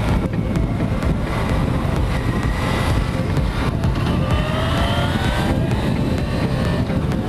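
Motorcycle under way, its engine running beneath a heavy wind rumble on a helmet-mounted microphone. The engine note climbs a couple of times as the bike accelerates.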